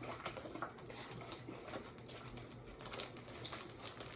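Sticky homemade slime being kneaded and stretched by hand, giving faint, irregular sticky clicks and small smacks, the loudest about a second in.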